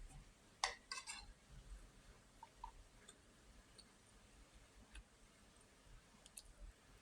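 Faint eating sounds in near silence: a quick cluster of small clicks a little over half a second in, then a few scattered soft ticks and clinks.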